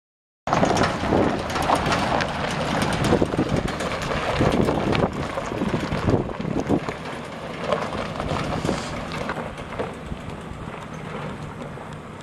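Chevrolet Silverado 2500HD pickup with a 6.0 L gas V8 driving off across gravel, its engine and tyres on the loose stones growing steadily fainter as it moves away.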